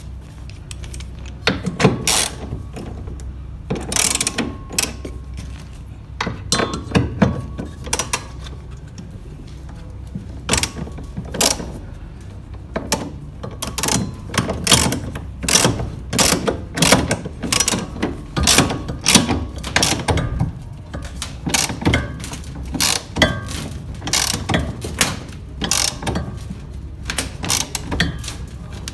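Ratchet wrench clicking in irregular bursts as bolts are worked while the washing machine's motor is positioned to set drive-belt tension, over a steady low hum.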